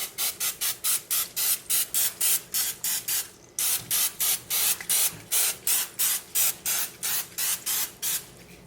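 Trigger spray bottle squeezed in quick succession, about four short hissing squirts a second, with a brief pause about three and a half seconds in, misting a light coat onto raw turkey pieces before the rub goes on.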